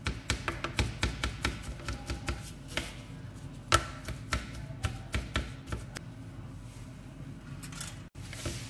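Chef's knife mincing peeled raw shrimp on a cutting board: quick taps of the blade against the board, several a second, thinning out and stopping near the end.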